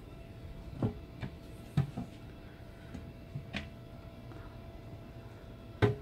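A few sharp clicks and knocks of wooden cabinet doors and a metal safe door being handled and opened, the loudest just before the end, over a steady low hum.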